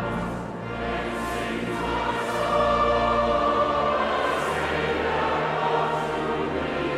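Choir singing a hymn, voices holding sustained notes over steady low accompanying notes.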